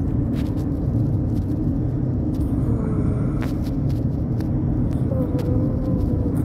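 Steady low rumble of a car on the move, heard from inside the cabin, with a few faint clicks.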